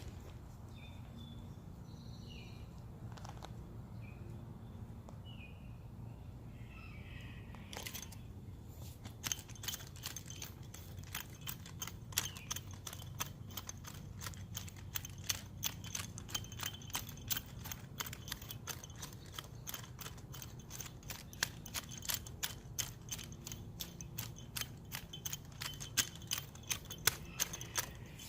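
Rapid, irregular scratching and scraping of topsoil being worked over a freshly seeded bare patch of lawn, starting about eight seconds in. A few short bird chirps come before it.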